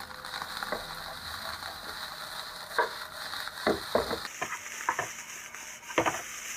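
Fried rice with noodles and bean sprouts sizzling in a non-stick wok as it is stir-fried with a spatula, the spatula scraping and knocking against the pan several times.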